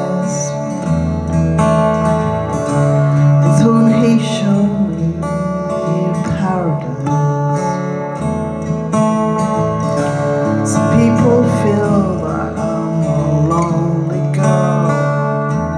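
Acoustic guitar playing a song with sustained, layered chords, and a woman singing along into a microphone.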